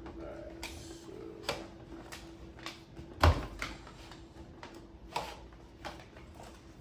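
Scattered knocks and clicks of things being moved and handled, with one loud thump about three seconds in, over a faint steady hum.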